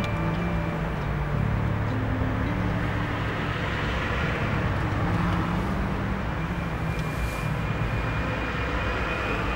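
Steady road traffic noise, a low rumble and hiss, with low held tones underneath that shift pitch now and then.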